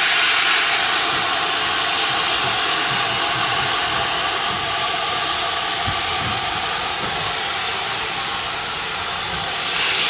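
Steam hissing steadily and loudly from GWR Saint-class 4-6-0 locomotive No. 2999 'Lady of Legend'. The rushing hiss eases slightly in the middle and swells again near the end.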